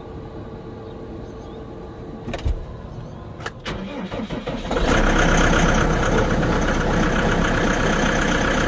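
New Holland Powerstar 120 tractor's diesel engine being started from cold: a knock and a couple of clicks, a short spell of cranking, then the engine catches about five seconds in and runs steadily and loudly.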